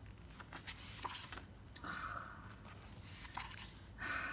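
Pages of a photo book being turned by hand: two soft paper swishes, about two seconds in and near the end, with a few light handling clicks before them.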